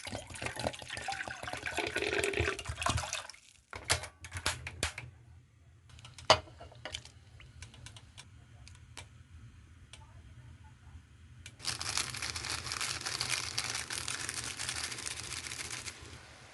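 Kitchen cooking sounds: a rush of water or liquid, then a string of sharp clicks and knocks of utensils and cookware with one louder knock, then another steady rush of liquid lasting about four seconds near the end.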